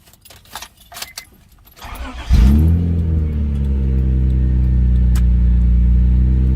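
Keys jingling in the ignition, then a car engine cranking briefly and starting about two seconds in, flaring up loudly and settling into a steady idle.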